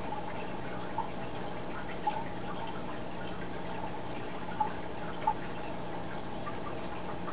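Aquarium filter running steadily: water trickling over a low hum, with four soft drips breaking through.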